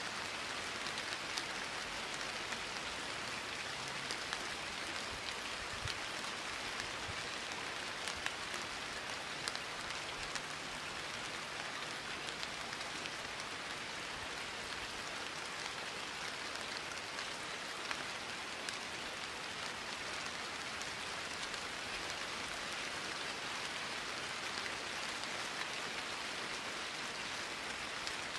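Steady rain falling: an even hiss with a few sharper ticks scattered through it.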